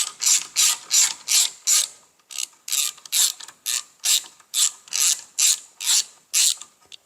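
Hand ratchet tool backing out a screw, with short bursts of ratchet clicking on each back-swing, about two to three a second, and a brief pause about two seconds in.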